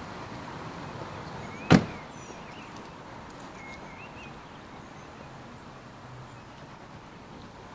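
A minivan's rear side door slammed shut once, a single sharp bang a little under two seconds in, over steady outdoor background noise.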